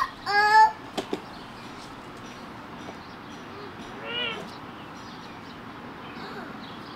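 A young child's short high-pitched squeal, rising in pitch, near the start, then a fainter sing-song call about four seconds in. A couple of sharp taps come about a second in.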